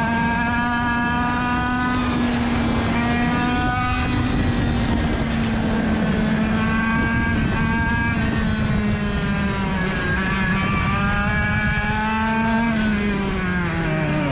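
Rotax DSB two-stroke kart engine at racing revs, its pitch climbing and dropping again and again through the corners. Near the end the revs fall away as the kart slows.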